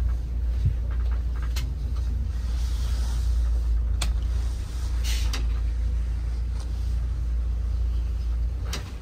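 Shuttle bus running: a steady low rumble, with a few short sharp clicks or knocks scattered through it.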